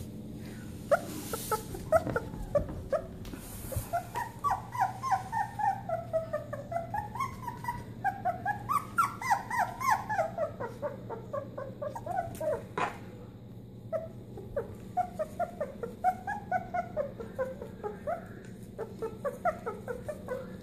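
Australian Shepherd puppy whining: runs of short, high, squeaky cries, several a second, each run sliding down in pitch, with brief pauses between runs.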